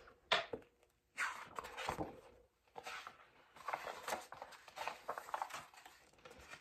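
A paperback picture book being handled and opened: soft rustling and scraping of its cover and pages in short irregular spells, with a light knock about two seconds in.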